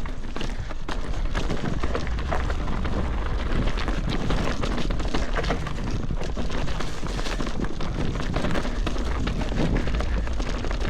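Mountain bike descending a rough trail: wind rumbling on the microphone, tyres rolling over dirt and rocks, and the bike rattling with many small knocks throughout.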